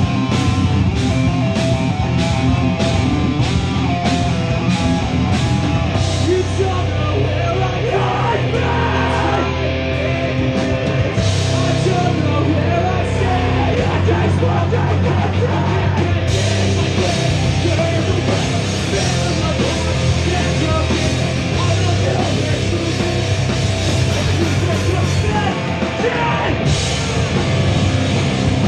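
Live rock band playing loud: electric guitars, bass guitar and a drum kit, with a vocalist shouting into the microphone. A steady drum and cymbal beat at about two hits a second carries the first few seconds.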